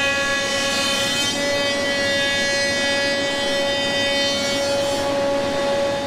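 Double-sided flattening planer running with a slab feeding through its cutter heads: a loud, steady whine of several tones at once.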